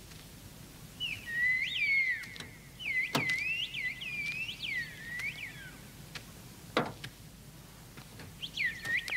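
A man whistling a coded call in the old whistled signal language of outlaws: three phrases of a held high note broken by quick rising and falling swoops. Two sharp clicks are heard between the phrases.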